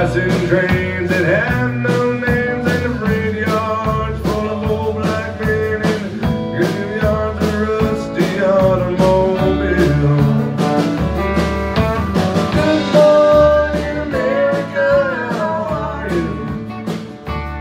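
Live country band playing with a steady beat: acoustic guitar strumming, fiddle and electric guitar over bass.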